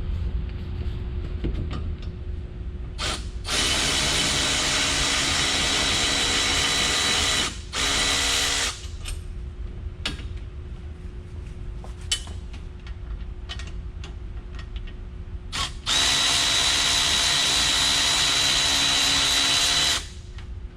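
Power tool running in bursts as it backs out a wheel hub's mounting bolts: a long steady whir, a short one just after, then another long whir near the end.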